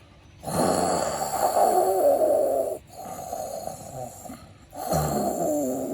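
Loud snoring performed as a sound effect for the story: two long snores, the second starting about five seconds in, with a softer breath between them.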